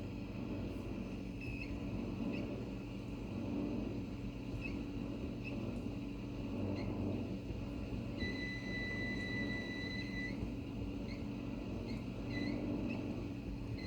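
Samsung dishwasher running with a steady low hum, short high squeaks every second or so, and a steady high-pitched whine for about two seconds just past the middle. These are the abnormal noises of a dishwasher its owner considers defective.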